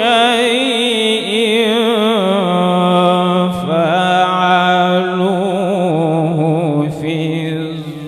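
A man's solo Quran recitation in the melodic mujawwad style, amplified through a microphone: long held notes with a quivering vibrato, the melody gliding up and down, with a short breath about three and a half seconds in.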